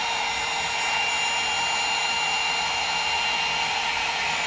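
Conair 2-in-1 hot air styler, a wand-style blow dryer, running steadily while drying hair: a constant rush of air with a thin, high, steady whine from its motor.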